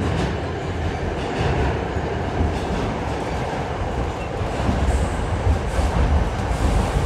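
An R46 New York City subway train running along the track, heard from inside the car: a steady loud rumble with the clatter of the wheels over the rails.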